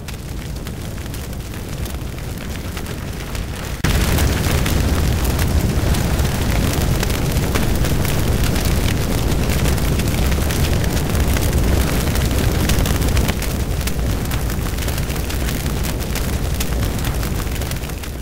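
Fire sound effect: a steady rush of burning with dense crackling, which jumps louder about four seconds in and eases a little later on, then cuts off at the end.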